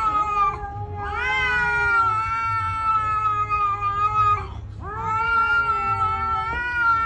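Gray cat yowling at another cat facing it: a short call, then two long drawn-out yowls of about three seconds each, each rising in pitch at the start and then held steady.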